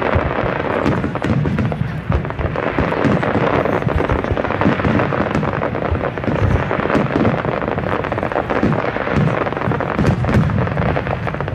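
Aerial fireworks shells bursting in quick succession: a continuous barrage of overlapping bangs and crackling with no pause.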